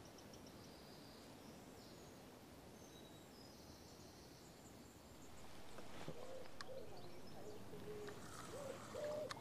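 Quiet pondside ambience with small birds chirping faintly. About five seconds in, a bird's low cooing call starts and repeats in short phrases, with a few sharp clicks.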